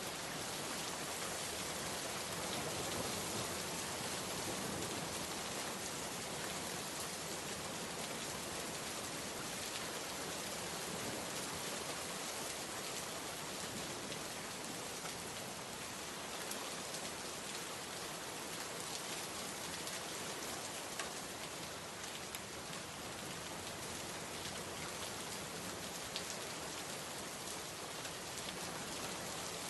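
Steady rain falling on a surface, an even hiss with a few individual drops ticking out now and then.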